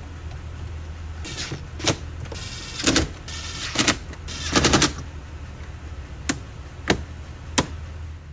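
Ridgid 18V cordless driver running in several short bursts, driving the screws that hold the head unit into the dash. Near the end come three sharp snaps as the dash trim clips are pressed home.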